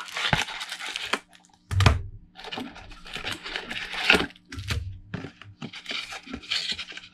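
Plastic shrink-wrap crinkling and cardboard rustling as shrink-wrapped card decks are slid out of a game box and handled, in three stretches of rustling. A sharp thump comes about two seconds in, and a smaller knock near four seconds.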